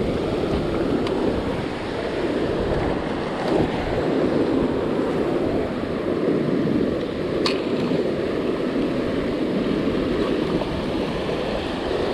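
Ocean surf washing steadily onto a beach, with wind on the microphone.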